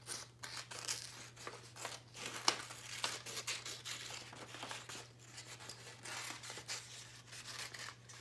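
Scissors cutting through construction paper in a run of short, irregular snips.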